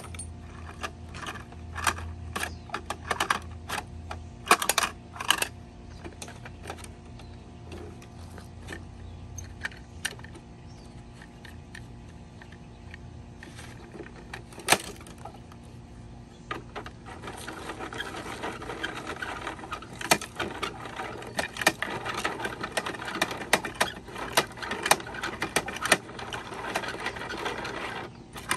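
Plastic toy garbage truck parts and bins clicking and rattling as they are worked. It is scattered separate clicks at first, then a busier run of rattling from a little past the middle until near the end.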